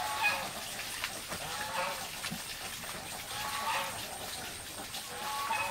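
An animal calling repeatedly: about four short, pitched calls, one every second and a half to two seconds.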